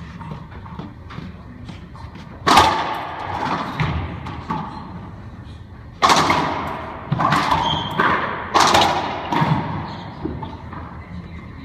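Racquetball rally: hard cracks of the ball off racquets and the court walls, ringing in the enclosed court. One loud crack comes about two and a half seconds in, then a quick run of five cracks from about six to nine seconds.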